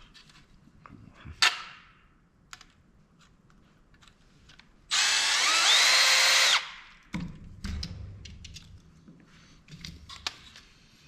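A small power screwdriver runs in one burst of about a second and a half, about five seconds in, its motor whine rising and then holding steady as it backs out a screw. Light clicks and knocks of small parts being handled come before and after it.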